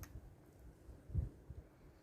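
Low wind rumble buffeting the microphone, with one short thump a little over a second in.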